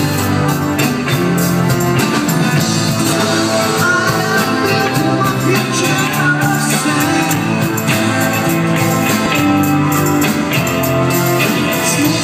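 Live band playing loudly on stage, electric guitars and bass over a steady beat.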